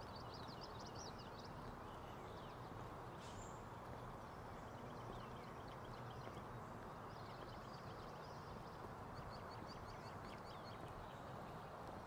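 Several small birds chirping, with many short high calls and quick trills coming and going, over a steady faint background rush of outdoor ambience.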